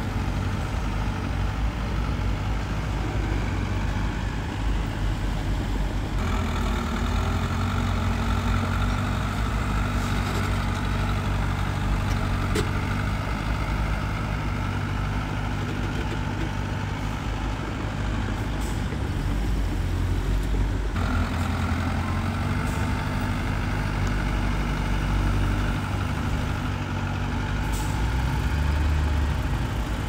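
Heavy diesel engine of earthmoving machinery running steadily, its sound changing about six seconds in and again about twenty-one seconds in.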